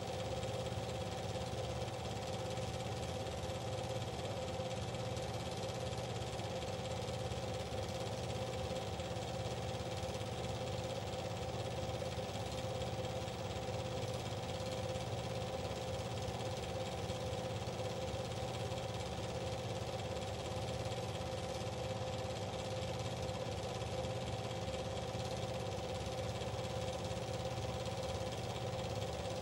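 Steady machine hum with several fixed tones, unchanging throughout, like a motor running at constant speed.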